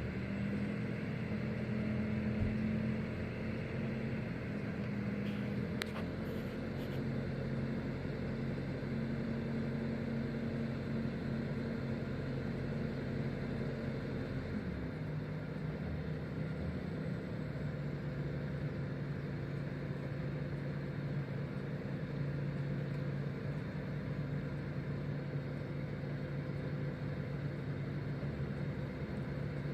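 Engine of a forestry machine working a chainsaw felling head, running steadily. Its pitch drops a little about halfway through, and there is a brief click about six seconds in.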